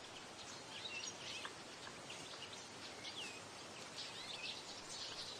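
Faint birdsong: scattered short chirps and curving whistles from several birds over a steady background hiss.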